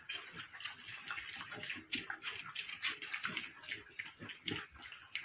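Piglets eating from a feed trough, with a busy, uneven run of quick chewing and smacking sounds and a few short grunts.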